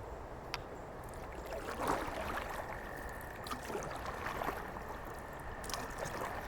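River water gurgling and splashing around a kayak as it is paddled into rapids, with a few short splashes along the way.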